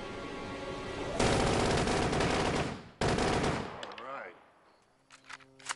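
Automatic gunfire: a long burst of machine-gun fire starting about a second in, a brief break, then a second, shorter burst that fades away. A sustained film score holds under the opening second.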